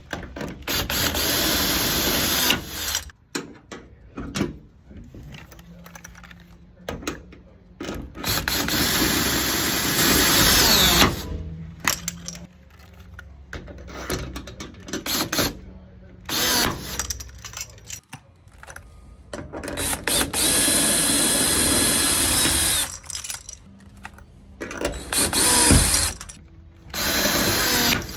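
Drill running in several short bursts of one to three seconds, driving the screw of a steel bridge puller to pull a glued tab and lift a dent out of a car panel.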